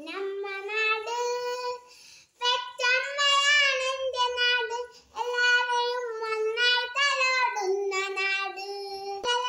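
A young girl singing a patriotic song solo and unaccompanied, in long held notes, with short breath breaks between phrases about two and five seconds in.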